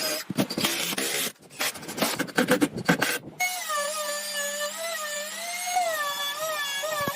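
Woodworking power tool at work. First comes a stretch of rough, choppy cutting or grinding noise; about halfway through it gives way to a steady motor whine whose pitch wavers slightly.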